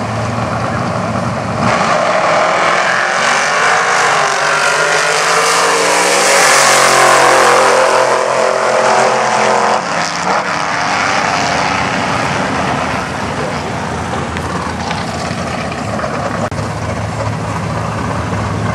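Drag-race launch: a pickup truck and a car leave the starting line at full throttle, engines rising in pitch as they pull away down the strip. Later a car engine runs steadily at low revs.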